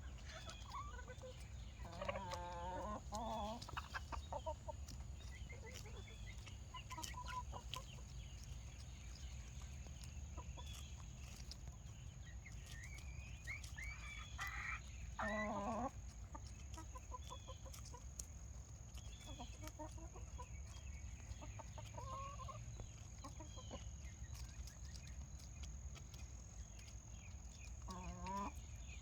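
Backyard chickens clucking and calling, with scattered short calls and a few louder, drawn-out calls, over a steady low background hum.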